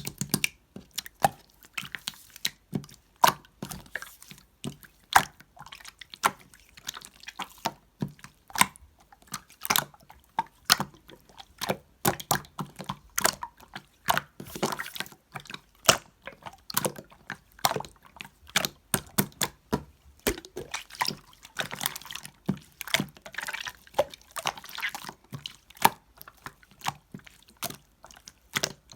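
Slime being squeezed and pressed by hand, giving a rapid, irregular stream of wet clicks and pops.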